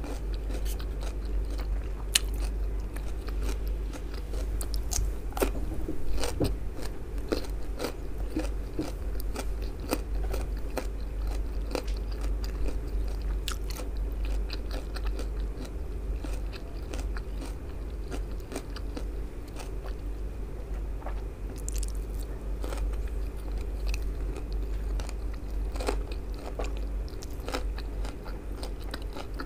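Close-miked chewing of baked eggplant pizza with a soft white topping, full of sharp wet mouth clicks and smacks at an irregular pace. A steady low hum runs underneath.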